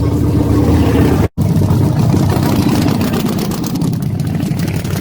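Motorcycle engine running steadily, broken by an abrupt cut about a second in, after which it carries on.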